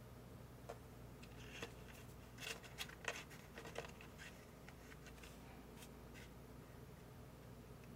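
Small plastic spoon stirring and scooping sauce in a plastic candy-kit tray: a scattering of faint light clicks and taps, busiest between about one and four seconds in, over a low steady hum.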